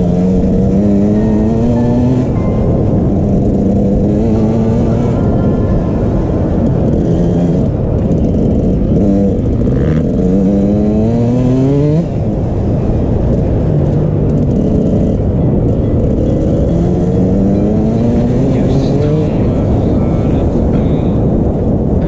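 Dirt bike engine riding hard, revving up and shifting: the pitch climbs several times and falls back at each gear change, with the longest climb ending in a sudden drop about twelve seconds in.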